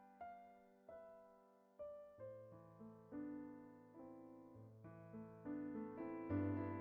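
Solo piano playing a soft, slow melody over sustained bass notes, each note struck and left to ring and fade. A fuller, louder chord comes in near the end.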